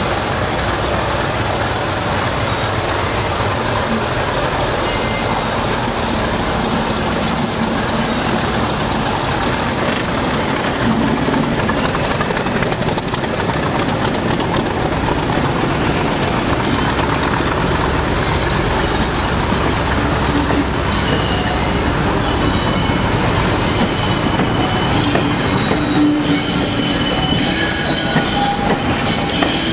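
English Electric Class 40 diesel locomotive and its train passing close by: a steady engine rumble with two steady high-pitched whistling tones for the first half. In the second half the coaches go by, with broken high squeals and wheel clicks over the rail joints.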